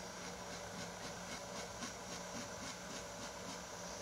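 A freshly whetstone-sharpened steel knife blade scraping across facial whiskers in short, rapid strokes, about four a second, faint over a steady hiss.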